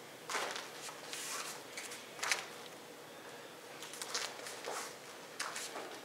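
Rustle and swish of a taekwondo uniform with bare feet shuffling on foam mats as the moves of a form are made: about six short, faint bursts, with one sharper snap a little past two seconds.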